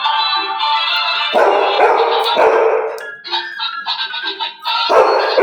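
A dog barking several times, in short loud barks about a second and a half in, twice more within the next second, and again near the end, over steady background music.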